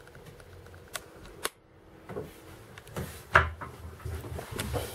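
Scattered light clicks and knocks in a small room, the loudest about three and a half seconds in: a wooden cabin door and its metal lever handle being handled.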